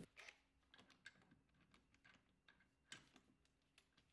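Near silence, with a few faint, sharp clicks spread through it.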